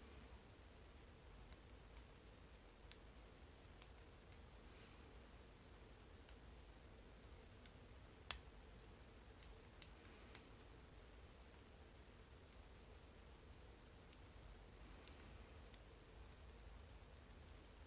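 Faint, scattered clicks of a lock pick and tension wrench working the pins of an old brass-bodied Yale pin-tumbler padlock, with one sharper click about eight seconds in and a few more just after.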